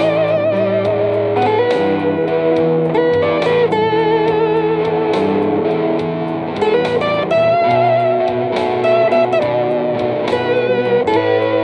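Telecaster-style electric guitar played through a small combo amp: a blues with picked single notes and held notes bent and shaken with vibrato.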